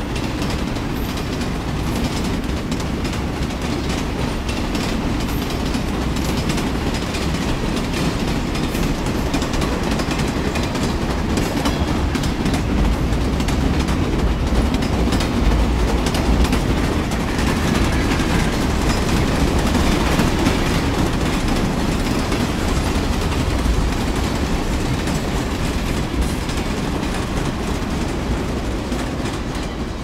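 A train rolling past with a continuous low rumble and rapid clatter of wheels over the rails. It grows louder toward the middle and eases off near the end.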